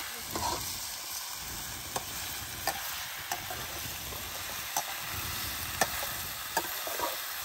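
Chicken and masala sizzling as they fry in a pot over an open fire, stirred with a spoon. Short sharp knocks come about once a second.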